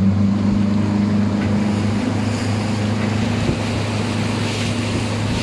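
Outboard motor of a Berkut M-DC motorboat, a Mercury 60 EFI four-stroke, running with a steady hum under wind and water noise.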